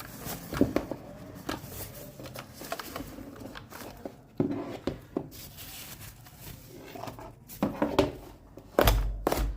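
Handling noises while unboxing a mechanical keyboard: rustling packaging with scattered clicks and knocks, and a heavier thump near the end.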